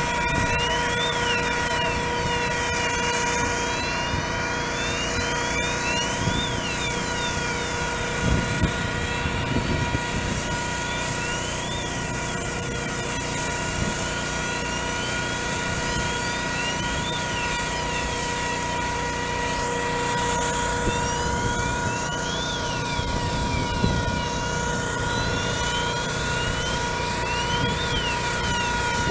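Engine-driven smoke ventilation fan running steadily, used to clear smoke from the building. It gives a constant whine of several steady tones, with quick rising-and-falling chirps repeating above it every couple of seconds.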